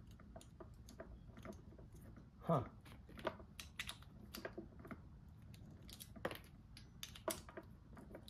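Faint, irregular plastic clicks and taps from tail light bulb sockets and wiring connectors being handled in the back of a tail light housing. About two and a half seconds in, a short falling tone stands out as the loudest sound.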